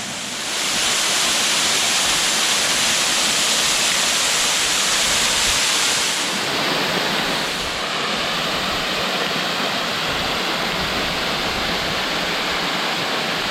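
Steady rush of water pouring down a waterfall, Matai Falls. It grows louder about half a second in and turns a little duller about six seconds in.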